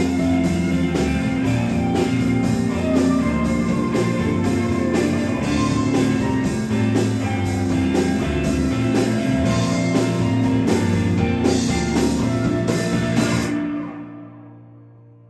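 Live rock band (electric guitars, bass guitar and drum kit) playing the loud closing bars of a song on a steady beat, then stopping together near the end, leaving a low chord ringing and fading away.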